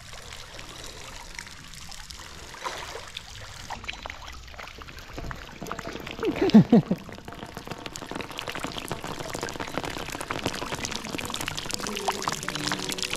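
Waterfall pouring and splashing steadily into the cenote pool, growing louder toward the end. A short voice sound breaks in about halfway through.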